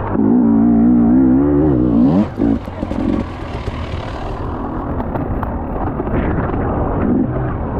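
Motocross bike engine running hard under throttle, its pitch wavering. About two seconds in the throttle closes and the note drops away, with a spell of rushing noise, then the engine picks back up.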